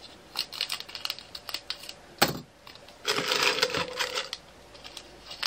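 Resin diamond-painting drills rattling and pouring from a plastic bag into a plastic tray and storage pots, with scattered small clicks, one sharp plastic click a little over two seconds in, and a dense rush of rattling drills about three seconds in lasting over a second.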